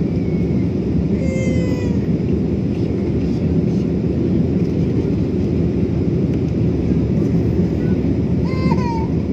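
Airliner cabin noise during the climb after takeoff: the steady, loud rumble of the jet engines and airflow. A few brief high-pitched, gliding voice-like sounds come through about a second in and again near the end.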